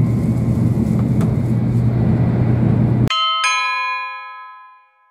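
Steady low rumble of a Shinkansen carriage's interior while the train is running. About three seconds in it cuts off and a two-note ding-dong chime is struck, ringing out and fading over about two seconds: a transition sound effect marking a title card.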